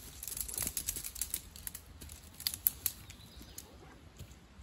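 Sections of a shock-corded tent pole clicking and rattling against each other as the folded pole is shaken out and fitted together. The clicks are irregular, with a few sharper snaps about two and a half seconds in.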